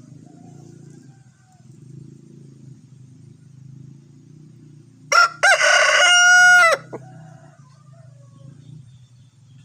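A rooster crows loudly once, about five seconds in, with fainter crows from other roosters farther off before and after it, answering one another.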